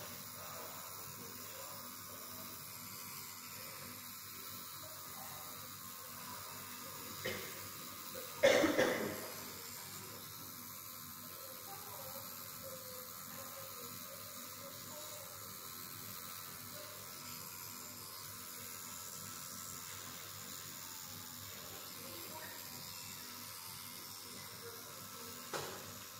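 Pen-style tattoo machine running steadily as it inks skin. A brief loud sound breaks in about eight seconds in.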